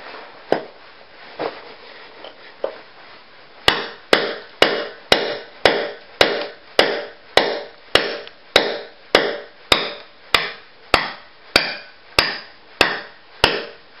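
Hammer striking the top of a long steel chisel held upright in a concrete floor slab, chipping out the concrete between drilled holes. A few light taps, then from about four seconds in a steady run of sharp strikes, a little under two a second, each ringing briefly.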